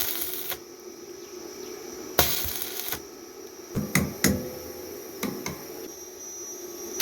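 Metal being worked by hand: two short scraping bursts, then several sharp clicks and knocks of steel against steel, over a steady low hum.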